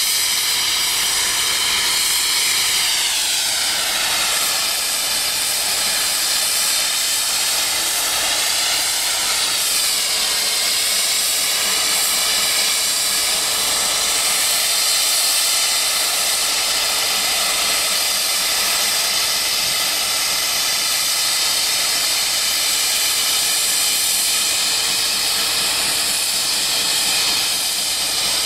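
Safety valve of a Chinese QJ-class 2-10-2 steam locomotive blowing off: a loud, steady hiss of steam venting straight up from the top of the boiler. This is the sign that the boiler has reached full working pressure.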